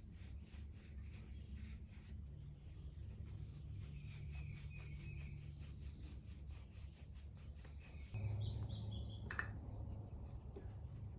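Birds chirping over a steady low hum, with a short falling run of notes about eight seconds in.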